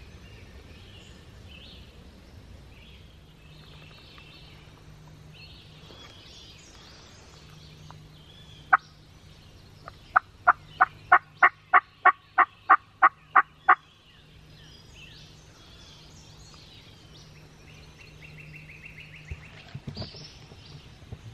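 Turkey yelping: one loud note, then, about a second later, a run of about a dozen loud, evenly spaced yelps at about three a second. Songbirds sing faintly throughout.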